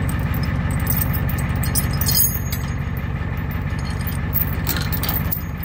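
Tow truck engine idling steadily, with steel chain links and a hook clinking as they are handled, the sharpest clink about two seconds in.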